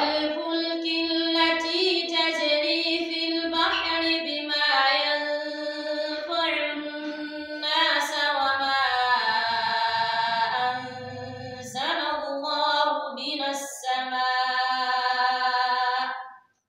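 A woman reciting the Quran in a melodic chant: a long phrase of held, wavering notes that stops sharply near the end.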